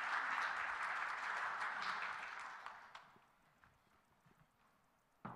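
Audience applauding, dying away over the first three seconds, followed by a few faint footstep clicks on a stage and one sharp knock near the end.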